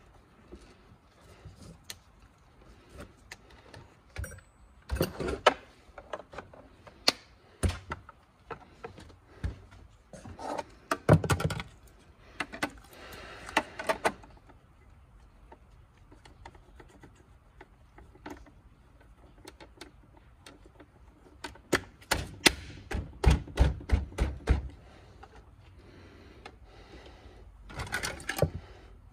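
Plastic parts of a Hyundai Palisade side mirror being handled and pressed together: scattered clicks, taps and knocks that come in several clusters.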